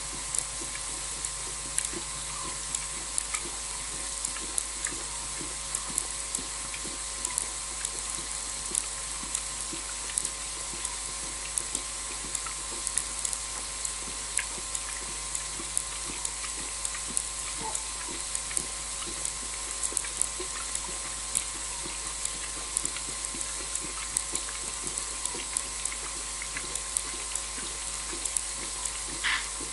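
Night-time outdoor ambience: a steady hiss over a low steady hum, with irregular sharp clicks and ticks a few times a second.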